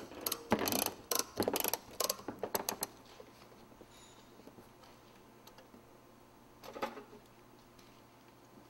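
Steel banding being tensioned and sealed with a hand strapping tool: a quick run of ratcheting clicks over the first three seconds, then one more click about two-thirds of the way through.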